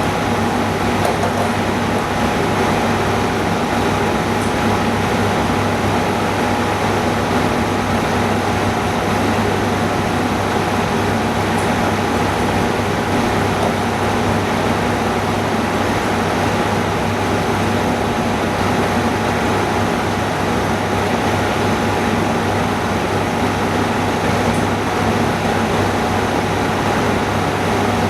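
Steady whir of running machinery and rushing air, with a constant low hum and a faint steady whine, unchanging throughout.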